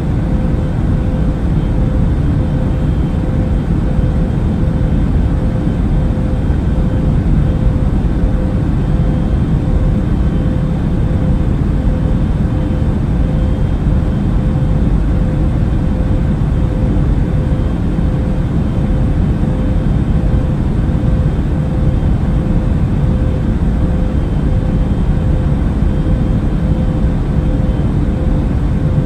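Steady drone of an airliner in flight: an unchanging low rumble of engines and rushing air with a constant faint hum over it.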